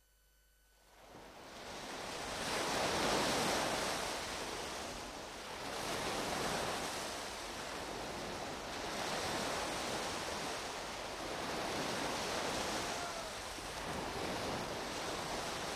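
Rushing, splashing water that fades in about a second in, then swells and ebbs about every three seconds like surging waves.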